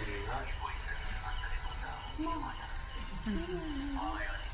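Crickets chirping in a steady, even pulse of about three chirps a second, with low voices talking faintly underneath.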